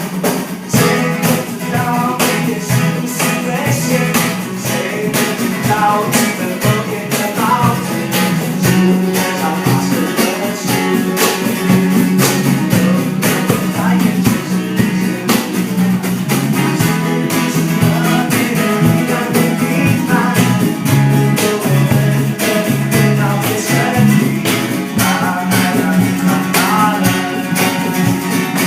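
A live rock band playing a song together, with drum kit hits running through it, bass notes underneath and guitars on top.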